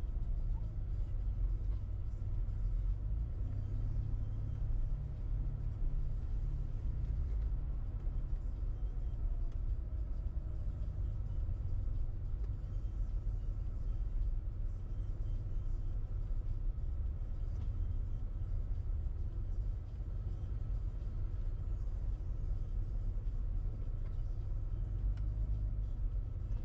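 Steady low rumble of a car being driven, engine and road noise with no distinct events.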